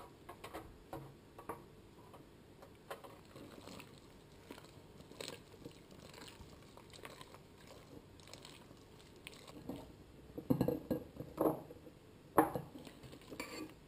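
Silicone spatula stirring flaked cod into mashed potato in a stainless steel bowl: soft squelching of the mash and faint scraping on the bowl, with a few louder scrapes and knocks near the end as the mash is spooned into a ceramic pot.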